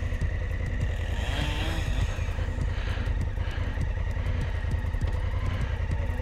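Big adventure motorcycle engine idling steadily while the bike stands still, a low, even rumble.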